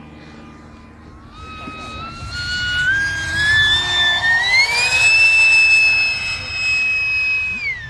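Electric ducted-fan impeller of an F-18 model jet whining as the jet makes a low pass. The high whine climbs in pitch and loudness in steps, holds steady, then drops sharply in pitch near the end.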